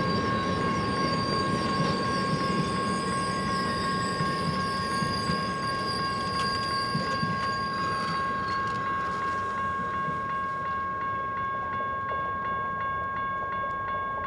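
Heavyweight passenger railcars rolling past a grade crossing: steady wheel-on-rail rumble and clatter with a wavering wheel squeal that stops about two thirds of the way through. The train noise then thins out as the last car passes, leaving the crossing signal bell ringing with steady, evenly spaced strokes.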